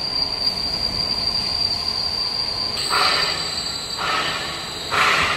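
BKT-60T helical-gear pipe welding turning roll running, with a steady high-pitched whine over a rumbling drive noise. From about three seconds in, louder bursts of hiss come roughly once a second.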